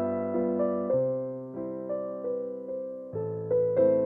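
Background piano music: a gentle keyboard melody of struck notes that fade away, over held lower chords.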